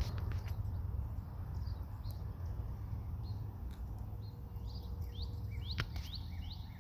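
Outdoor ambience: a steady low background rumble with a small bird chirping, a run of short rising chirps that come faster in the second half, and a few faint clicks.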